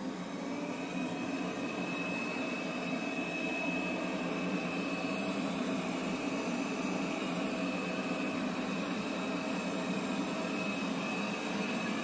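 Proscenic M7 Pro robot vacuum's suction fan running on carpet: a steady whir with a high whine held throughout.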